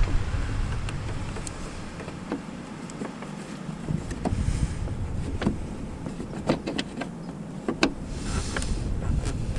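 Hand tools and parts being handled during car repair work: scattered sharp clicks and light knocks, with a couple of brief scraping rustles.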